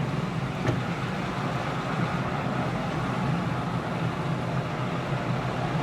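2005 Honda Pilot's V6 engine and road noise heard from inside the cabin while driving down the street, a steady low drone with a faint click about a second in. At this speed the engine sounds okay, without the rough, diesel-like sound it makes at idle.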